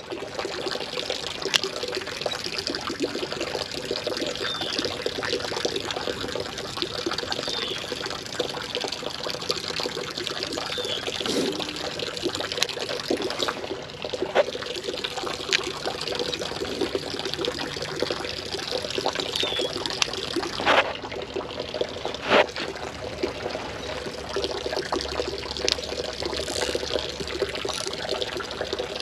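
Creek water trickling and flowing steadily.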